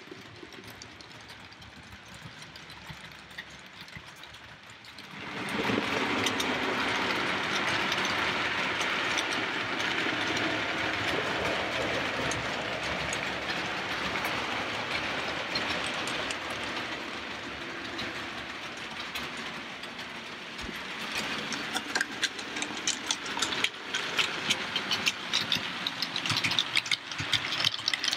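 OO gauge model trains running on the layout's track. About five seconds in, a loud steady whirr of motor and wheels sets in as a train runs close by; near the end it gives way to rapid clicking of wheels over rail joints.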